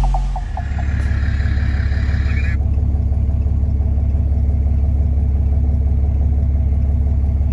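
An engine running steadily at a low, even pitch, with a slight rapid pulse.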